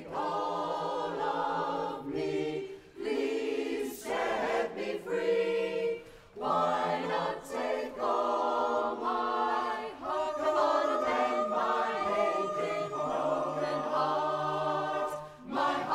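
Mixed barbershop chorus of men and women singing a cappella in close harmony, in short phrases with brief breaks, then holding one long chord over the last few seconds as the song closes.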